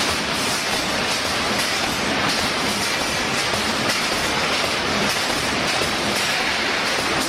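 Semiautomatic mesh-sheet welding line running, giving a steady, even mechanical clatter and hiss.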